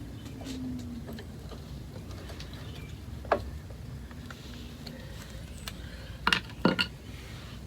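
A few light clicks and knocks of hand-tool work on an outboard's gear case plugs: one sharp click partway in, then two louder knocks close together near the end, over a steady low background noise.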